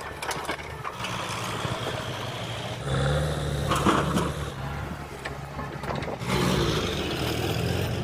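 Diesel engines of a JCB backhoe loader and a farm tractor running steadily while the backhoe loads mud. The engine sound gets louder about three seconds in and again a little past six seconds, with a brief higher sound near four seconds.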